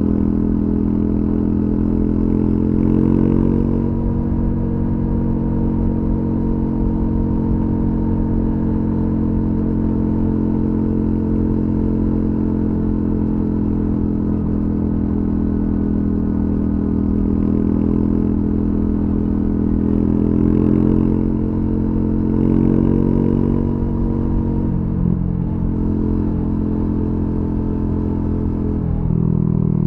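Triumph Scrambler 400X's single-cylinder engine running through its stock exhaust while cruising on an open road. The engine note stays fairly even, with brief rises in revs a few seconds in and again past the middle, and the revs drop near the end.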